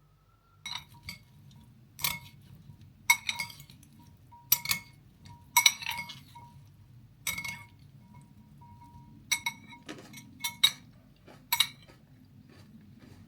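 A utensil clinking irregularly against dishes, well over a dozen light strikes, some leaving a brief ringing tone.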